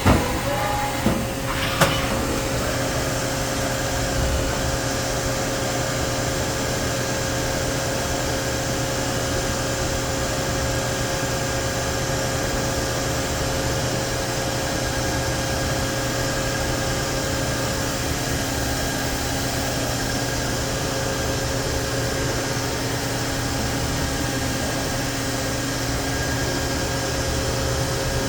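2005 Haas SL30T CNC lathe running, with a steady hum and whine from its spindle drive. There are a few sharp knocks in the first two seconds.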